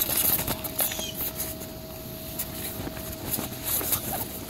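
Dogue de Bordeaux puppy moving about on the vinyl floor of an inflatable bounce house: scattered taps and scuffs of its paws and of plastic toy balls knocked about.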